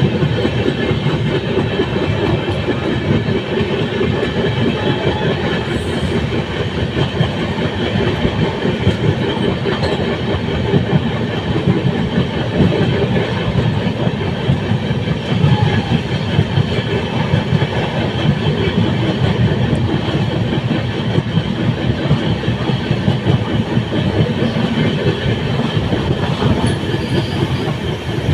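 Express passenger train running at speed, heard from on board: a steady rumble of wheels on the rails with faint steady tones over it.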